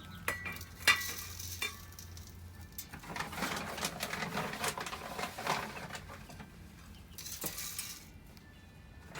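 Chick feed being scooped out of a bag and poured into a feeder: a scoop scraping and clinking, the loudest clink about a second in, and the feed pouring with a rustling hiss.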